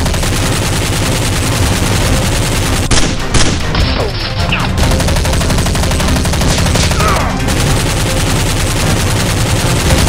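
Continuous rapid automatic-gunfire sound effects, dense and unbroken, with a few falling whines cutting through.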